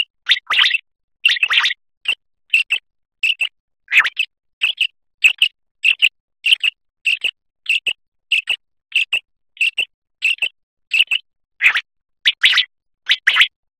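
Common quail calling: short, sharp notes repeated evenly about one and a half times a second, some of them doubled, with silence between.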